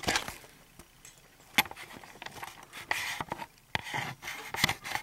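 Scattered small knocks and clicks, the sharpest about a second and a half in.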